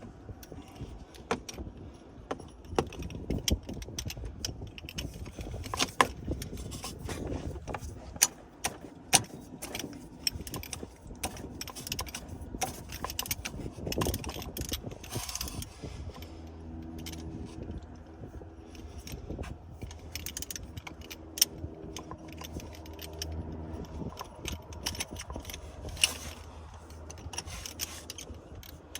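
Metal hand tools clicking and clinking: a 3/8-inch-drive ratchet with a socket and extension working the E12 Torx bolts of a crankshaft pulley loose by hand. A low steady hum sounds for several seconds about halfway through.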